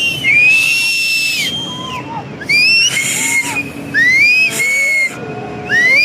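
Shrill, high-pitched cries from people raising the alarm over a flash flood: each cry rises, holds and falls, and they come again every second or so. Lower shouts are mixed in, over a loud rushing noise of floodwater.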